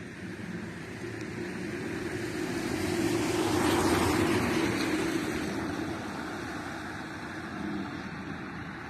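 A road vehicle passing by, its noise building to a peak about four seconds in and then fading away.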